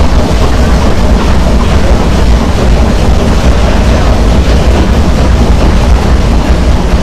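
Loud, steady rumble and rush of a cruise boat under way, with wind buffeting the microphone.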